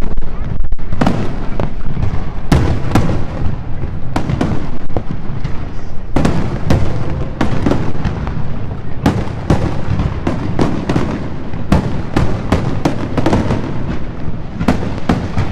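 Aerial fireworks display: many sharp, irregular bangs and booms, several a second at times, over a continuous low rumble.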